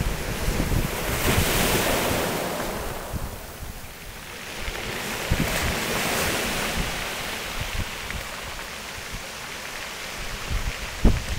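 Rough-sea waves washing up and drawing back over a stony shore: two surges of surf hiss, a few seconds apart. Wind buffets the microphone throughout.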